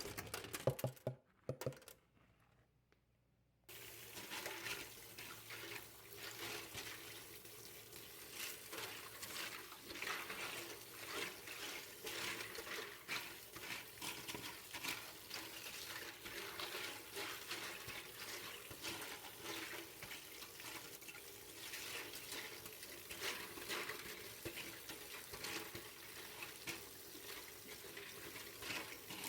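Tap water running into a sink over a pile of plastic keyboard keycaps being rinsed, with frequent light clicks and clatter of the keys. There is a gap of near silence for about two seconds near the start.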